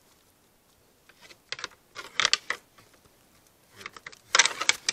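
Sharp clicks and rustles from a red deer stag feeding with its muzzle and antlers right at the trail camera, in two clusters of quick clicks, the second louder near the end.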